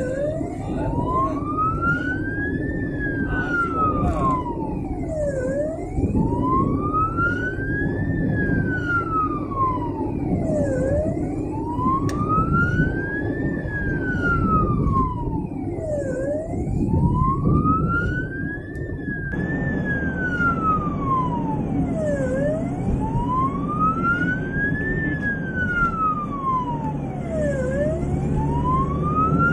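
Ambulance siren on a slow wail, its pitch gliding up and then down about once every five seconds. It is heard from inside the moving ambulance's cab, over a low engine and road rumble.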